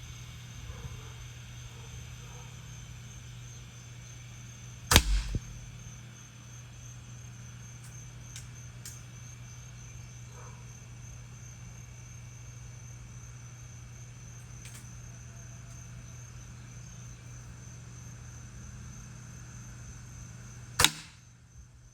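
Two shots from a Ruger Impact Max break-barrel air rifle, each a single sharp crack, about sixteen seconds apart, the first followed by a brief low rumble. Between them a steady low hum and a faint high insect-like whine.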